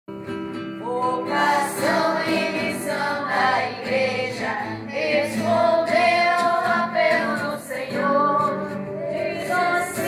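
A group of children and women singing a song together, the voices coming in about a second in and holding long notes.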